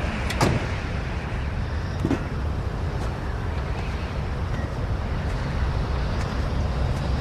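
Steady rumbling noise, like road or wind noise, with a brief sweep about half a second in and a faint knock about two seconds in.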